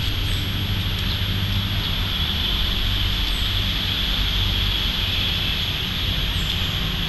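Steady outdoor background noise: a constant low rumble under a steady high-pitched drone, with a few faint ticks.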